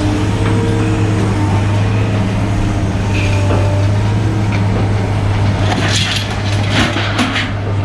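Heavy scrapyard machinery running steadily with a low engine drone and a shifting whine, and scrap metal clanking several times near the end.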